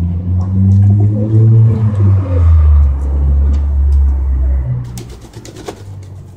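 A domestic pigeon cooing loudly in a deep, repeated, wavering coo, close by. Near the end the cooing stops and there are a few quick wing flaps with splashing from the water tray.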